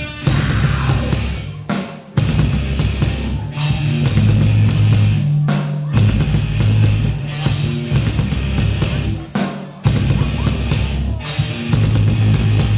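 Rock band playing live: a heavy riff on drums and guitars, broken by short stops where the band cuts out together and comes back in.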